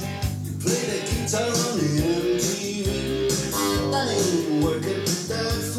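Guitar music played back from a cassette on an Akai GXC-39D stereo cassette deck, with melody lines sliding up and down over a steady bass.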